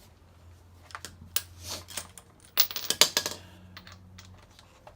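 Sharp metallic clicks and clinks of hand tools and bolts while the bottom alternator bracket is fitted to the engine block. There is a few clicks about a second in and a quick run of clicks around three seconds in.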